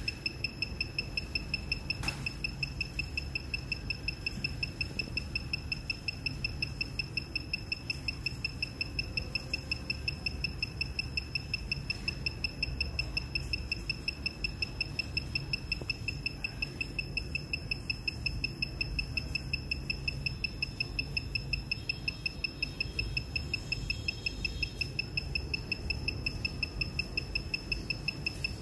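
Rapid, evenly repeating high-pitched electronic beeping, several beeps a second without a break, from the Smarttool 2 handheld ECU programmer while it remaps an ECU. A low hum runs underneath.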